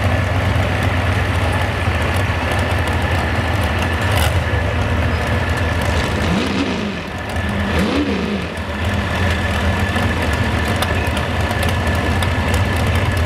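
Supercharged engine of a modified 4x4 pulling truck idling, with two short throttle blips a little past the middle.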